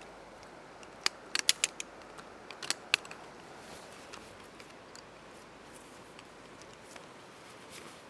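A handful of sharp metallic clicks and clinks from camp gear being handled and assembled in the first three seconds, then only a steady hiss of rain.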